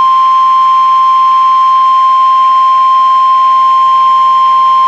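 NOAA Weather Radio warning alarm tone: a single loud, steady 1050 Hz tone held without a break. It signals that a warning broadcast, here a severe thunderstorm warning, is about to follow.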